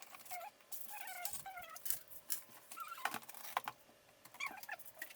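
Light, scattered clicks and taps of hardware being handled during a PC build, with faint short chirping calls in the background.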